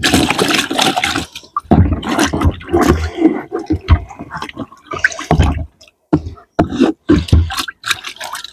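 A bucket being rinsed out in lake water: irregular sloshing and splashing, with a few dull knocks of the bucket.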